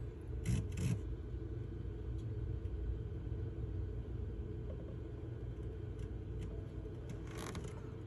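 Steady low rumble of a vehicle engine idling, with two faint brief scrapes about half a second and a second in.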